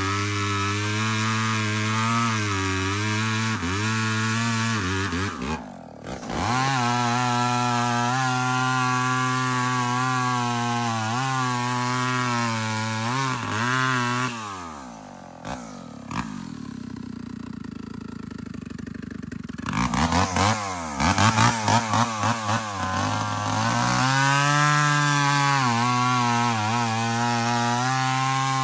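Two-stroke chainsaw running at high revs, its pitch sagging and recovering as it cuts wood. About halfway through it drops to a lower, quieter idle for a few seconds. It is then blipped several times in quick succession and goes back to full revs.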